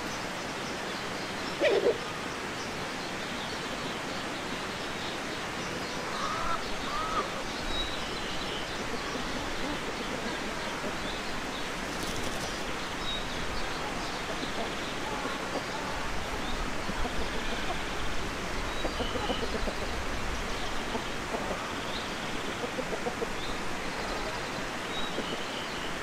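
Farmyard ambience: a chicken gives one short, loud call about two seconds in, and small birds chirp here and there, over a steady hiss.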